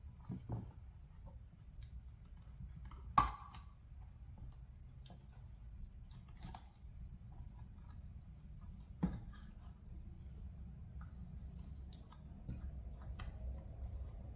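Sparse plastic clicks and taps from hands working a car side-mirror cover and trim loose, with a louder click about three seconds in and another about nine seconds in.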